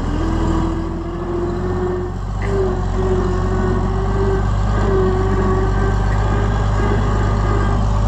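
Farm tractor engine idling steadily, with a mid-pitched whine over it that breaks off twice and stops about six seconds in.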